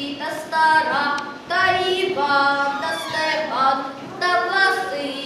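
A young boy singing a Ukrainian folk song solo and unaccompanied, holding and sliding between notes.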